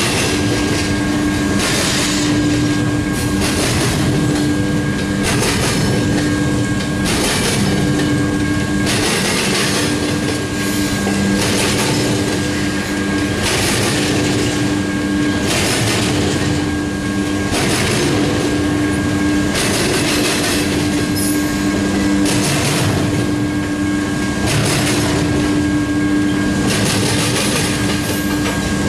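Loaded double-stack container well cars rolling past, their wheel sets clattering over rail joints every second or two, with a steady whine running under the rumble.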